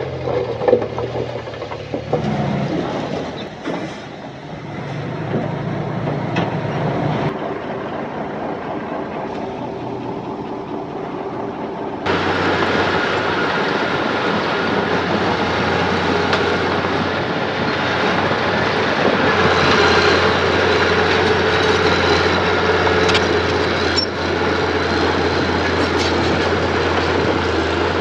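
Diesel engine of earth-moving machinery running steadily under work. About twelve seconds in, the sound turns abruptly louder and brighter.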